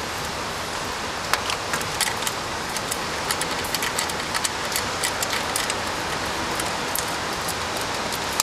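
Steady hiss of rain, with scattered light clicks and taps from small hand tools loosening the metal hose clamps on a car's intake pipe.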